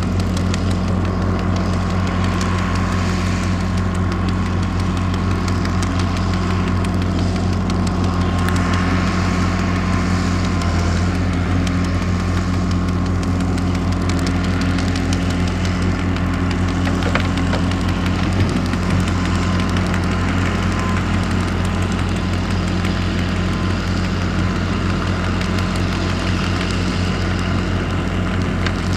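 John Deere 4640's turbocharged 7.6-litre six-cylinder diesel engine running at a steady drone as the tractor pulls a Kuhn Knight 2054 Pro-Push manure spreader that is throwing out manure.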